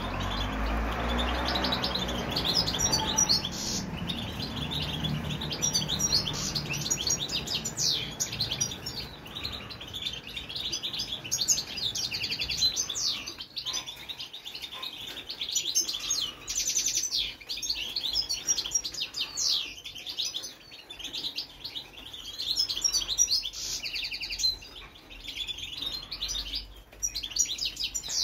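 Caged European goldfinches singing: long runs of rapid, high twittering chirps, with short breaks between phrases.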